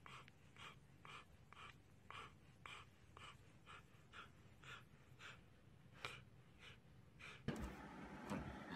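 Husky panting, faint short breaths about two a second. Near the end a louder, noisier sound cuts in.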